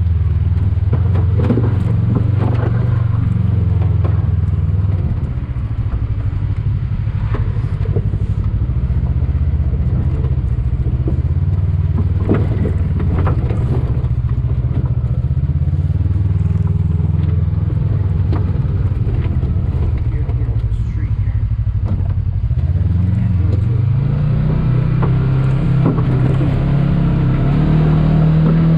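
Side-by-side UTV engine running at low revs while crawling down a rocky trail, with scattered knocks and clatter from the rocks and chassis. About three-quarters of the way through, the revs climb and stay higher.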